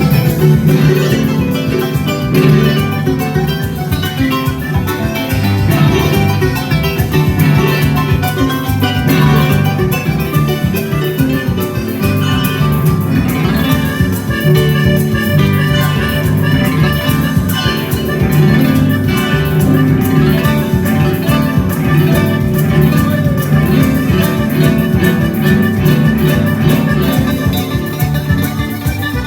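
Live Paraguayan music played on plucked string instruments, with a steady rhythm.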